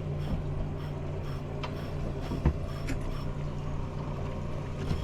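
Boat engine running steadily, a low even hum, with a few faint knocks.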